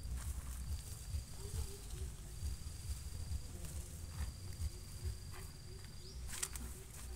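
An insect trilling in high, steady stretches of about a second each, repeated. Under it are short rustles and knocks from weeds being pulled and handled, and a constant low rumble.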